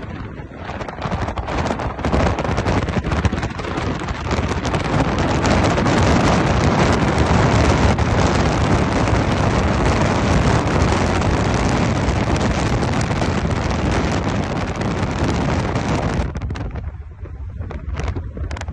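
Wind rushing over a phone's microphone, mixed with road and engine noise, filmed from a moving vehicle. The rush dies down for a moment near the end, then picks up again.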